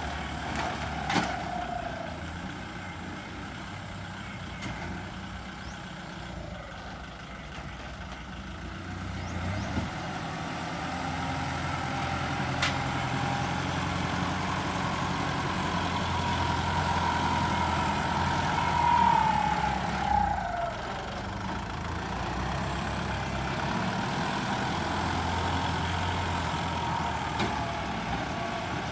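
Kubota turbo-diesel tractor engine running under load as the tractor works a disc plough, growing louder for a stretch through the middle, with a whine that rises and then drops away about two-thirds of the way in.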